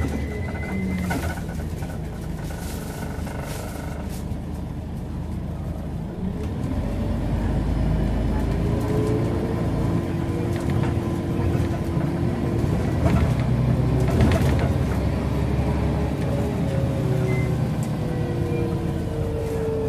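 Scania CN94UB bus's nine-litre five-cylinder diesel and ZF automatic gearbox heard from inside the saloon, running in traffic. The engine grows louder about six seconds in as the bus pulls harder, with a whine that shifts in pitch through the gears, over body rattles.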